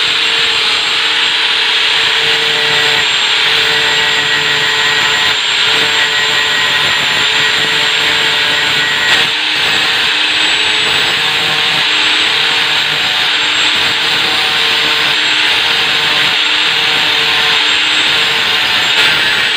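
Handheld electric angle grinder running steadily with its wheel held against stainless steel, grinding a point onto the metal. It makes a constant motor whine over a loud grinding hiss.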